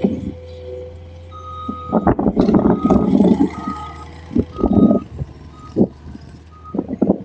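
Skid steer's reversing alarm sounding a series of high beeps while it backs up, over its steady engine drone.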